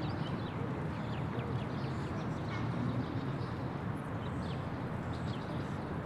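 Daytime city park ambience: many small birds chirping in short, quick calls over a steady low background rumble.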